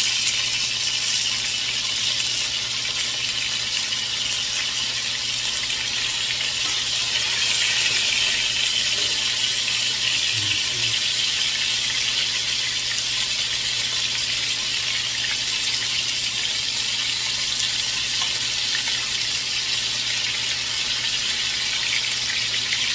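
Homemade sausages sizzling steadily as they fry in olive oil in a frying pan.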